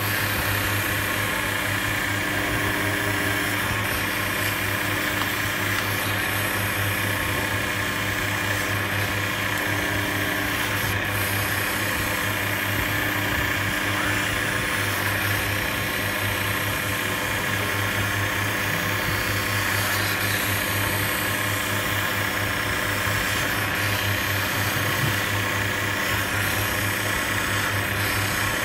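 Optician's hand edger running with a steady motor hum while the edge of an Essilor Varilux Digitime progressive lens is ground by hand against its spinning wet wheel, a continuous grinding rasp over the hum.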